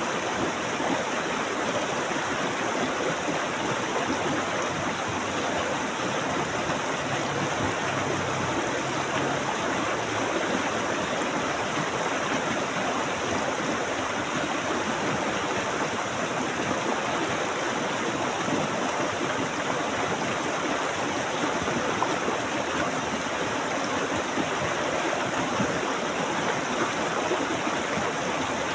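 Stream water flowing steadily, an even, unbroken rush.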